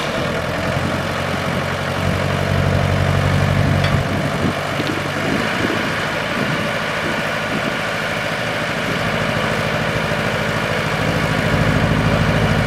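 Small diesel locomotive's engine idling steadily, with a swell in the low engine note twice, over a steady hiss of escaping steam from the narrow-gauge steam locomotive alongside.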